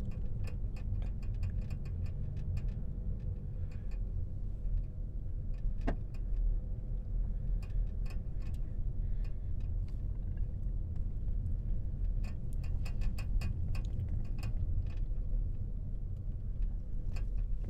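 Car cabin at low speed: the steady low rumble of the engine and tyres rolling on a paved road, with scattered light clicks.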